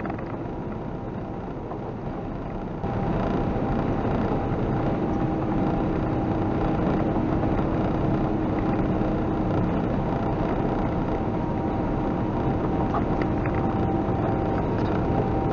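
Steady engine and road noise inside a semi-truck's cab at highway speed, with a steady hum running under it; it grows louder about three seconds in.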